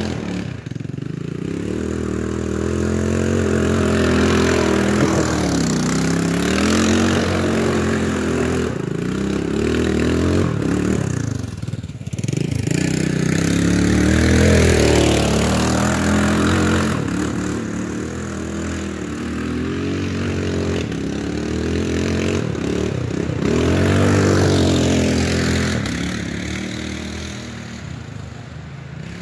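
ATV (four-wheeler) engine revving up and down as it is ridden around the trail, its pitch repeatedly rising and falling with the throttle. It is loudest about halfway through and eases off near the end.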